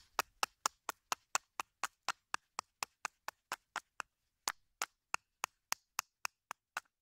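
Short knife blade carving a split piece of wood for a bow-drill fire set, each stroke a short crisp cut, about four a second, with a brief pause around four seconds in.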